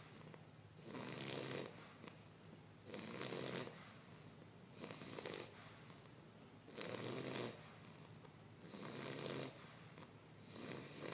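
Snoring in slow, even rhythm, one short snore about every two seconds.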